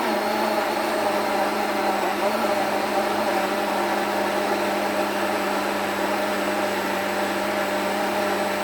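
Electric kitchen blender running steadily, blending a thick avocado and boiled-rice mixture until smooth.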